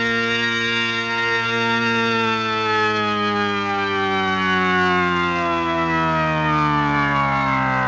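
A sound-effect tone, a sustained droning note rich in overtones, sliding slowly and steadily down in pitch, dropping a little faster near the end, over a steady low hum.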